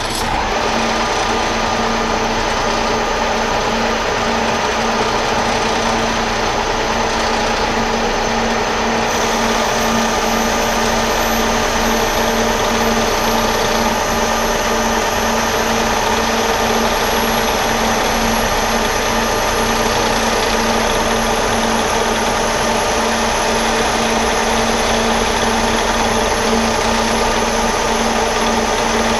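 Metal lathe running steadily under a 40-thousandths-of-an-inch cut on a bushing, the motor and gearing humming with a faint high whine that comes in about a third of the way through.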